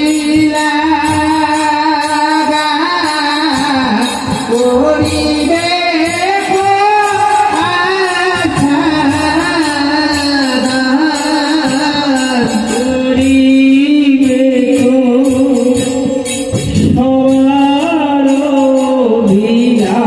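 Live Hindu devotional kirtan: voices singing a melody over sustained accompaniment, with percussion keeping a steady beat, played loud through the PA loudspeakers.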